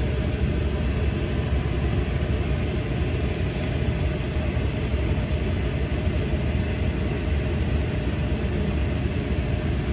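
Steady low rumble of a car running, heard from inside its cabin.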